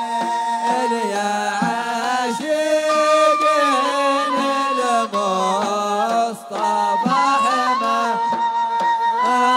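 Men's voices singing a Hadrami zarbadi melody in long held notes that step up and down with ornamented turns, with two brief breaths about five and six seconds in.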